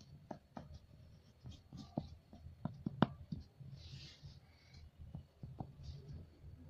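Pastel crayon scraping and tapping on paper in short strokes, a string of small clicks and knocks with the sharpest about three seconds in.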